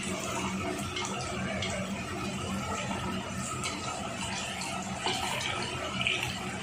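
Medu vadas deep-frying in hot oil in an aluminium pot: steady sizzling and crackling, with a metal spatula knocking against the pot a couple of times near the end.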